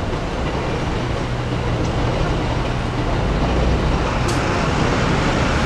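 Steady low rumble of passing vehicles, growing slightly louder.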